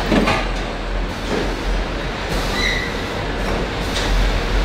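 Car assembly-line machinery running: a steady mechanical rumble and low hum from conveyors and carriers, with a few short clanks and a brief high squeal about two and a half seconds in.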